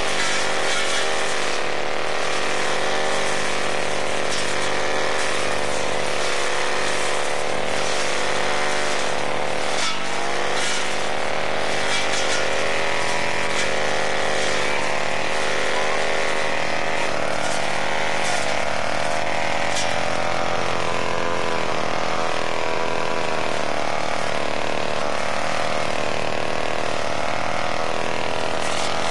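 Two-stroke petrol brushcutter running steadily while cutting grass and brush, its engine note wavering slightly with the load.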